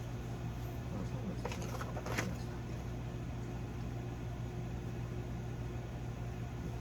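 Steady low hum, with a couple of faint clicks about a second and a half and two seconds in.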